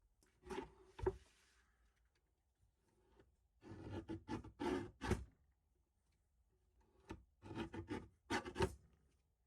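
Rubbing and scraping in three short groups of strokes, with a sharp knock at the end of several of them.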